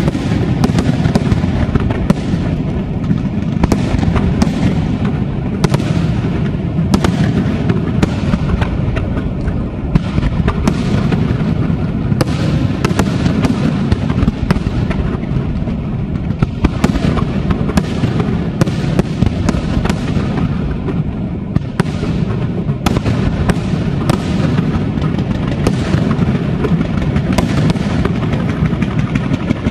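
Aerial firework shells bursting in a dense, unbroken barrage: a steady rumble of booms with many sharp bangs on top.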